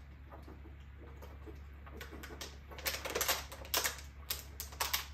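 Almonds being tipped from a container into the mouth and eaten: irregular sharp clicks and crunches that start about two seconds in and grow louder.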